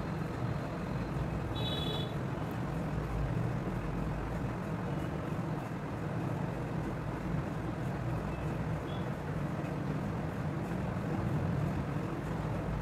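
Steady low background rumble with no distinct events, apart from a brief faint high tone about two seconds in.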